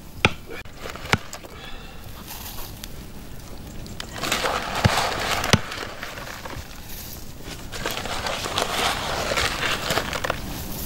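Loose dry black tea leaves poured from a cardboard box into a kettle of boiling water, a rustling hiss in two pours. A couple of sharp clicks near the start as the kettle's metal lid is lifted.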